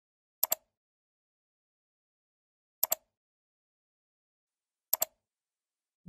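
Computer mouse clicking three times, about two seconds apart, each time a quick pair of sharp clicks, with dead silence between.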